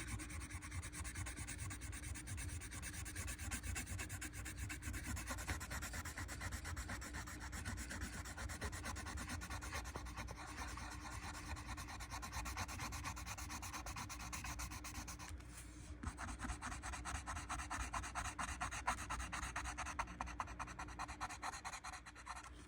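Colored pencil shading on paper in rapid back-and-forth strokes. About two-thirds of the way through the strokes stop briefly, then resume quicker and scratchier, with a faint steady hum underneath.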